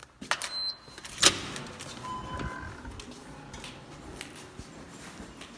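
A glass entrance door being opened and shut: a couple of small clicks, a brief high tone, then a sharp clack about a second in, the loudest sound here.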